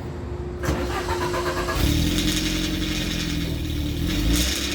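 Alfa Romeo 33's flat-four boxer engine cranking on the starter and catching just under two seconds in, then running steadily. This is the startup at which the engine puffs blue smoke, which the owner puts down to valve stem seals gone dry letting oil past the valve stems.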